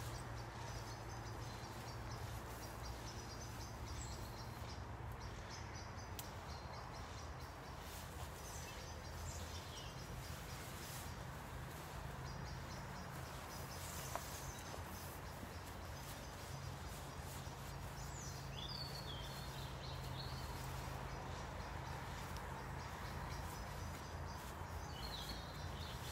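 Quiet, steady woodland background noise with faint bird calls and chirps now and then, and a couple of faint clicks.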